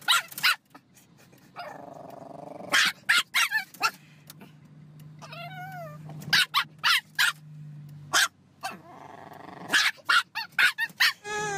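Small dog barking in quick bursts of sharp yaps, with growling between the bursts.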